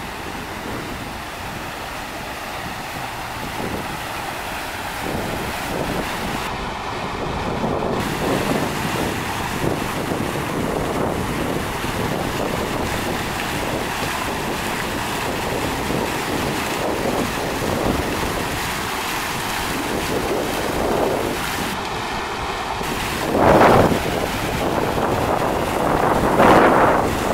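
Asakura's three linked wooden irrigation waterwheels turning, water splashing and pouring steadily from their buckets back into the channel. Wind buffets the microphone, with a few louder gusts near the end.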